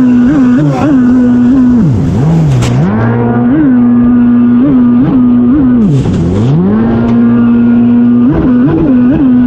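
ProWatercraft ProForce 3.0 stand-up jet ski engine running hard at high revs, held steady with quick blips, then dropping sharply and climbing back twice as the throttle is eased through turns. Water spray rushes off the hull in short bursts.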